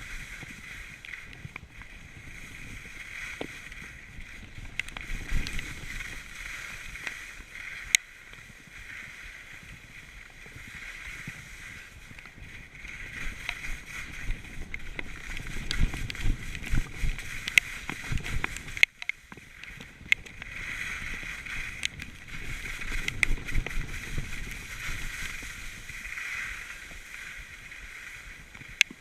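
Skis hissing and scraping over the hard-packed snow of a steep piste during a fast descent, with sharp clicks now and then.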